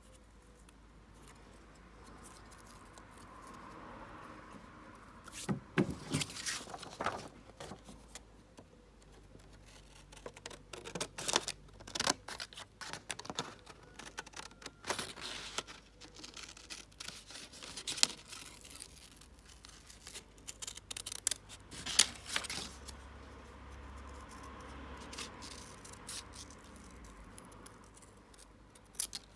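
Small scissors snipping through thin printed card: a run of irregular sharp snips, starting a few seconds in, with the card rustling as it is turned between cuts.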